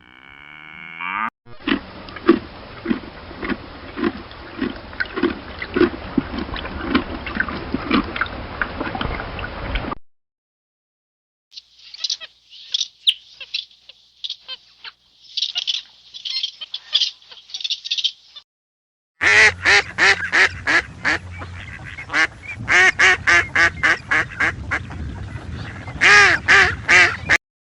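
Several different animal calls, one recording after another with abrupt cuts: first a run of repeated calls, then high-pitched chirping, then quick repeated calls.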